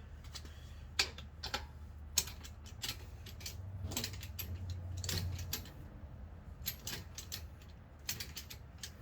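Ratchet wrench with a 21 mm socket clicking in short, irregular bursts while working the wheel's lug nuts, with metal tool clinks, over a steady low hum.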